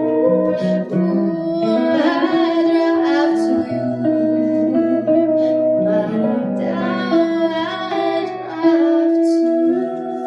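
Dream-pop song played live on guitar, with a female voice singing a melody that the transcript records no words for.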